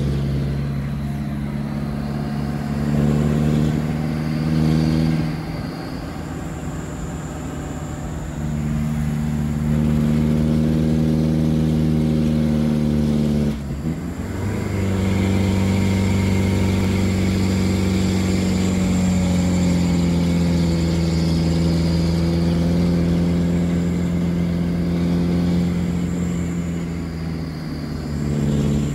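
A motor vehicle's engine running steadily while driving. Its note holds level for several seconds at a time and shifts to a new pitch a few times, with brief dips in loudness.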